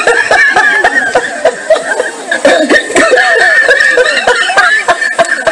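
Crowd of spectators laughing, many voices at once.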